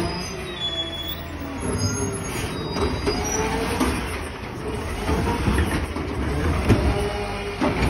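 McNeilus ZR side-loader garbage truck on a Crane Carrier LET2 chassis pulling up and stopping, its brakes squealing thinly in the first second. From about two seconds in, the diesel engine runs louder and keeps working with wavering mechanical whines, and it gets louder again near the end as the truck readies its arm to pick up a cart.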